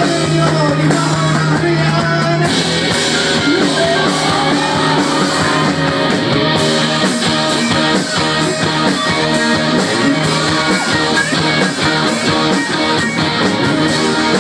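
Rock band playing, with guitar over a steady drum beat; a held low note gives way to the fuller band about two and a half seconds in.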